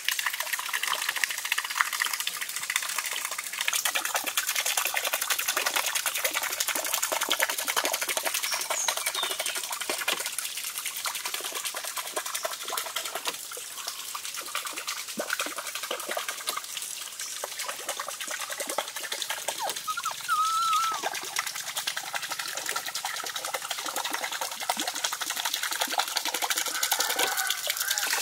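Water splashing and trickling steadily over a small spoked water wheel as it turns, with a brief high chirp about twenty seconds in.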